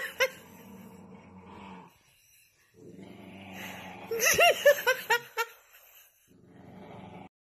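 Dog vocalising: a low grumble, then a quick run of short, high whining yelps about four seconds in.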